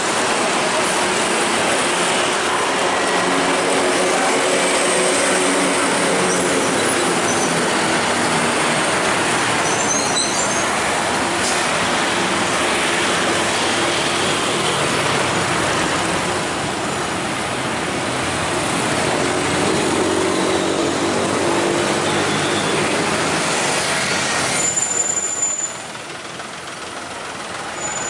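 Busy road traffic: heavy trucks and motorcycles passing, with their engines running over constant tyre and road noise.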